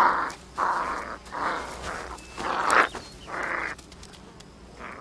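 Coyote pups growling as they play-fight: five short, rough growls about two a second, stopping about four seconds in.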